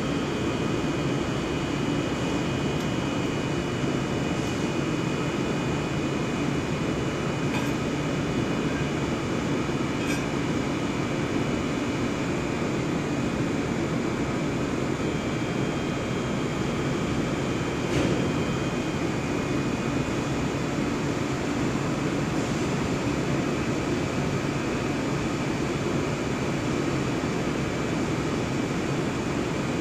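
HDPE blown film extrusion line running steadily during start-up: a continuous machine noise with a few steady tones, broken by a few light clicks.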